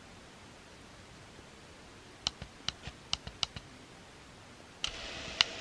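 Buttons on a Retekess V-115 pocket radio clicking as the AM band is tuned, about seven clicks in quick succession. Near the end a short burst of hiss from the radio's speaker comes in, with one more sharp click.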